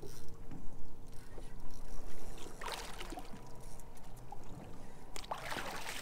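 A hooked tripletail splashing and thrashing at the water's surface beside a boat, in two noisy bursts, one about two and a half seconds in and a longer one near the end, over a steady low background noise.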